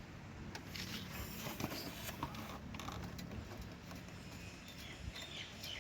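Faint, scattered metallic clicks and taps of bolts and hand tools being handled while the gearbox bell-housing bolts are fitted, over a faint steady low hum.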